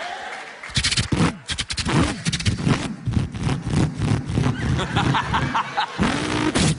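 A man imitating a V8 Holden Torana engine with his voice: rapid crackling, popping rev bursts begin about a second in, and near the end a rising rev.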